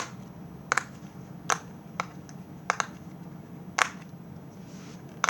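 Hard plastic pop-it fidget toy being pressed, its bubbles popping inside-out one at a time: about eight sharp clicks, irregularly spaced, some in quick pairs.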